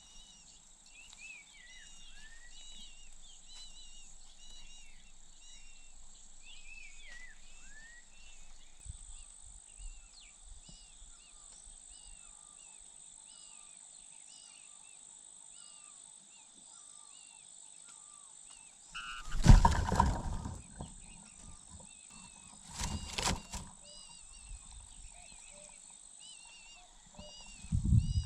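A cuckoo chick begging, with short high chirps repeating over and over. Loud rustles break in about two-thirds of the way through, again a few seconds later, and once more near the end.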